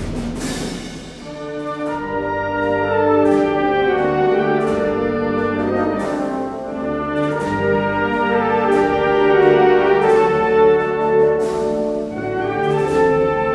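Military band playing a Spanish processional march: trumpets and low brass holding full sustained chords, with struck percussion strokes at the start and again near the end.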